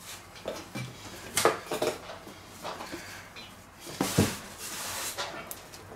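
Kitchen handling noises as pizza dough is pressed and stretched by hand on a wooden board: a few knocks and clatters, the loudest a heavy thump about four seconds in, followed by a brief hiss.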